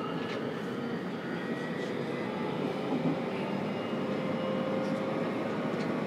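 Running noise inside a JR Kyushu 303 series electric train's motor car: a steady rumble of wheels on rail with a faint, even motor whine over it, slowly growing louder.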